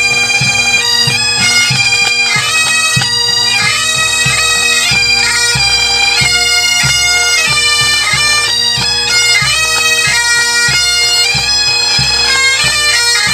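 Pipe band playing: Great Highland bagpipes sounding a melody over their steady drones, with the drums beating time in regular strokes.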